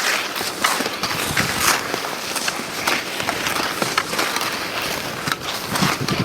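Wooden cross-country skis scraping and gliding over icy snow, with a scrape at each stride.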